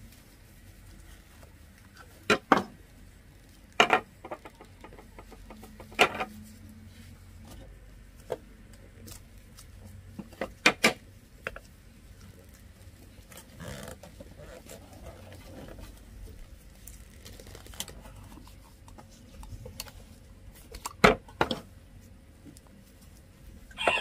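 Scattered sharp clacks and knocks, about ten in all, some coming in quick pairs or threes, with a quiet room in between, like dishes or utensils being handled.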